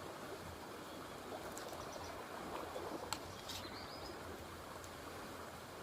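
Faint, steady rush of flowing water, like a stream or small waterfall, with a few faint high chirps now and then.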